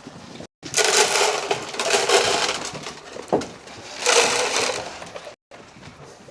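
Grain poured from a feed can into a feeder, two rattling, rushing pours of a second or more each.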